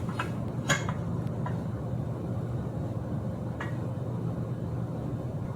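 A few light metallic clicks and taps, most likely bicycle fork and headset parts being handled as the fork goes back into the frame, over a steady low hum.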